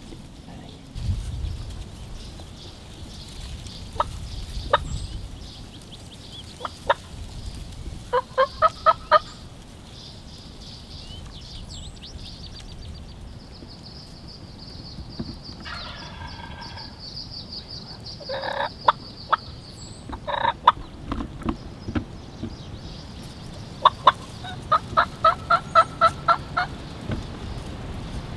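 Wild turkey calls: a short run of about five yelps, a rattling gobble in the middle, and a longer run of about eight yelps near the end, with single yelps scattered between.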